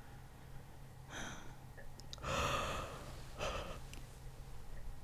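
A woman breathing softly close to the microphone: a short breath about a second in, a longer, louder sigh around two and a half seconds in, and another short breath just after.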